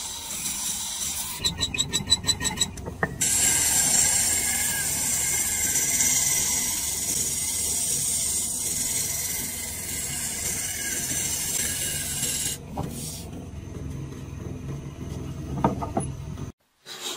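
Wooden bowl spinning on a lathe while a long turning tool cuts its inside, a steady hissing shear as shavings come off. Near the start there is a rapid rattle for under two seconds. About three-quarters through it gives way to a quieter cut, and it breaks off just before the end.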